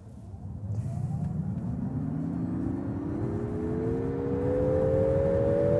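Nissan Ariya e-4ORCE's dual electric motors whining under full-throttle acceleration from a standstill, several tones rising steadily in pitch together. Beneath them, tyre and road rumble grows louder as the car gathers speed.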